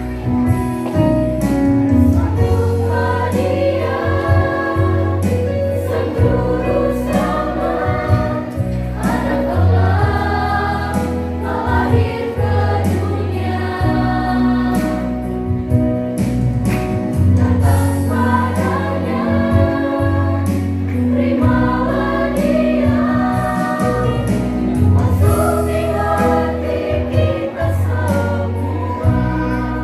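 A mixed choir of young men and women singing a Christian praise song together, over an accompaniment with deep bass notes that change every couple of seconds.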